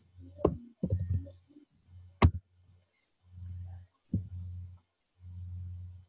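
Computer keyboard and mouse clicks heard over a video call: a few taps early on and one sharp click a little after two seconds in. A low hum cuts in and out in short patches.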